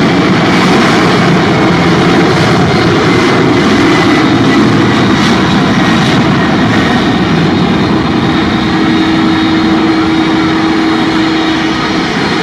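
Jet airliner's engines, loud and steady, close by on the runway. A steady whine joins in about two-thirds of the way through.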